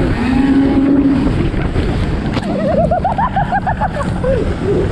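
Snowmobile engine running with loud wind rush on the microphone while a towed sled is pulled over snow. About halfway through comes a quick run of rising-and-falling higher tones.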